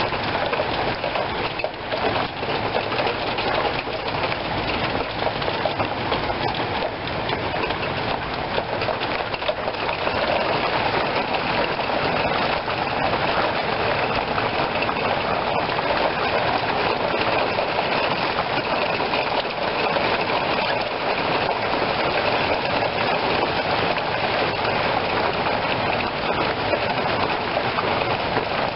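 Steady rain falling on a wooden deck, an even hiss with no break.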